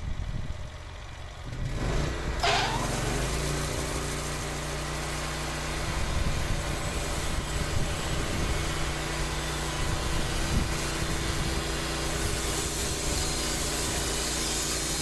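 The gasoline engine of a TimberKing portable sawmill coming up to speed about two seconds in, then running steadily with a high hiss over it.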